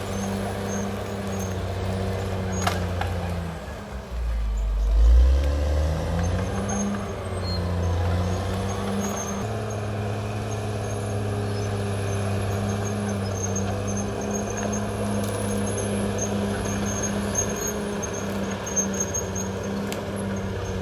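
Caterpillar D6R XL bulldozer's diesel engine running steadily while working. About four seconds in the engine note drops and then climbs back, with a heavy low thump at the dip.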